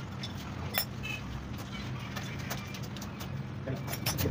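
Honda CG 125's air-cooled single-cylinder four-stroke engine idling steadily after a rebuild, with scattered light metallic clicks over it.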